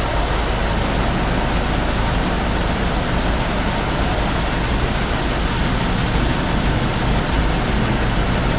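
Water jets of an automatic car wash spraying against the car's body and windows, heard from inside the cabin as a steady, even hiss.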